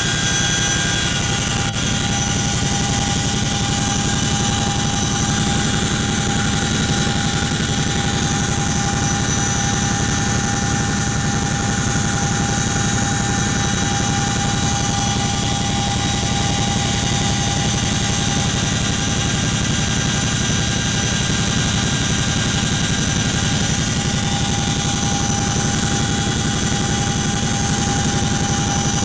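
CH-47 Chinook helicopter heard from inside its cabin in flight: a steady rumble with a high whine held on one pitch over it.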